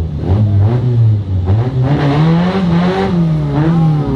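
Car engine revving while staged at a drag-strip start line before the launch. It holds a steady rev for about a second and a half, rises to a higher held rev, then eases back near the end.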